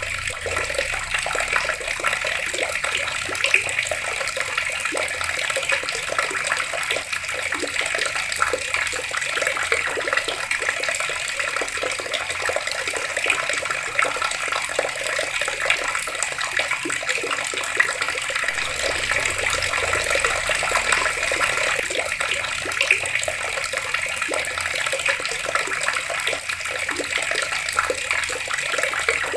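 Water running steadily from taps and splashing, an even rushing hiss with no breaks.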